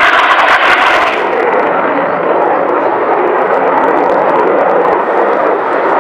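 Loud jet noise from the twin engines of an F/A-18 Hornet-type fighter flying overhead. About a second in, the high hiss falls away, leaving a lower, steady rush.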